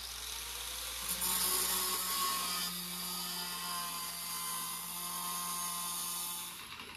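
Angle grinder running and cutting into an aluminum fender panel, widening a relief cut, with a steady motor whine under a loud gritty hiss. It switches off near the end and winds down.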